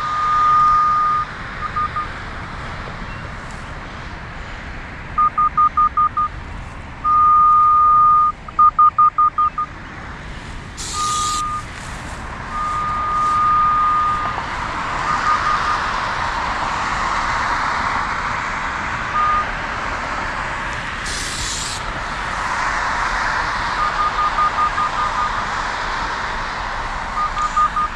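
Radiodetection RD8200 cable and pipe locator receiver beeping in guidance mode: a single high tone sounding in long steady beeps and quick runs of short pulses, changing as the receiver is swept over the pipe's signal. Two short hisses come at about 11 and 21 seconds, over steady background noise.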